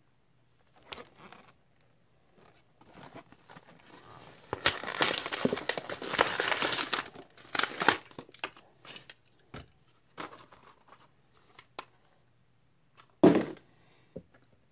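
Stiff plastic blister pack crinkling and its cardboard backing card tearing as a die-cast toy car is unpacked by hand, loudest in the middle, with scattered small clicks. Near the end a single sharp knock as the small metal toy van is set down on the table.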